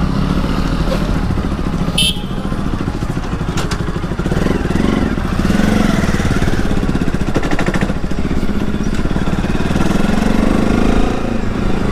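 Motorcycle engine running steadily while riding, with a short sharp click about two seconds in.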